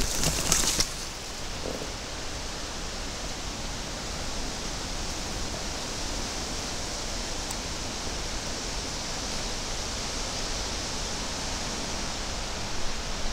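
A brief burst of clothing and brush rustling, then the steady, even rush of strong wind through leafy trees and bushes.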